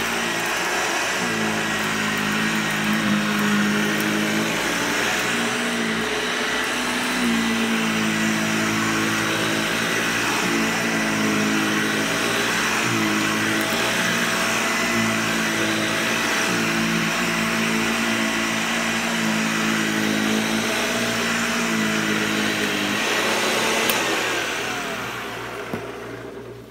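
Hoover Lightweight 1340 vacuum cleaner motor running steadily, its pitch shifting a little now and then. Near the end it is switched off and winds down.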